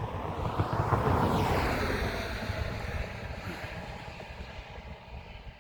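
A vehicle passing on the highway: tyre and engine noise swelling to a peak about a second in and then fading away as it drives off, with wind buffeting the microphone.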